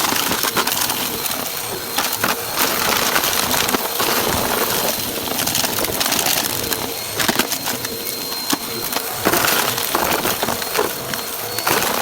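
Vacuum cleaner running steadily and being pushed quickly, sucking up crunchy debris that crackles and clicks as it rattles up through the nozzle.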